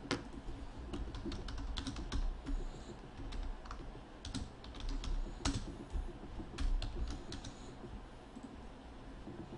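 Typing on a computer keyboard: irregular clicking keystrokes that thin out near the end.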